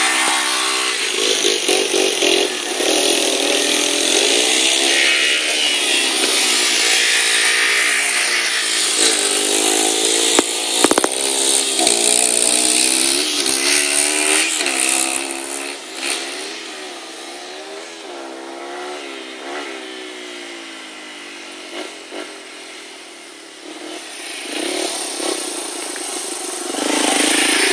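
Small single-cylinder four-stroke Honda XR80 dirt bike engines revving, the pitch rising and falling over and over as the bikes accelerate and shift. About sixteen seconds in the sound fades as the bikes move off, and it grows loud again near the end.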